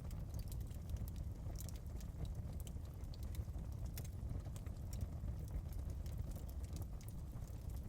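Wood fire burning in a fireplace: a steady low rumble of the flames with frequent irregular crackles and pops.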